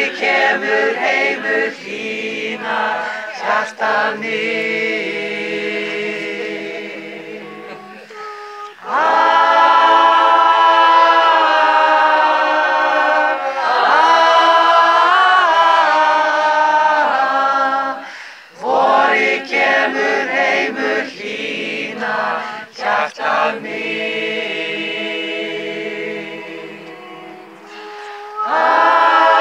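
Choir singing a cappella in harmony, in long held phrases of about ten seconds with short breaks between them.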